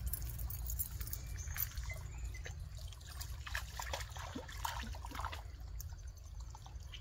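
A small dog wading into a shallow creek pool: light, irregular splashing and sloshing of water around its legs, busiest in the middle.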